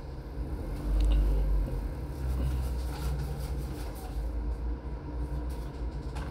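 A deep low rumble that swells about a second in and then runs on more softly.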